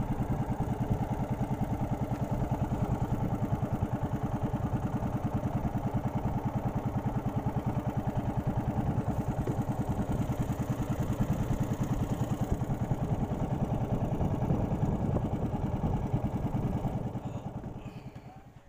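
Small petrol boat engine running steadily at trolling speed with a fast, even pulse, then fading away over the last second or two.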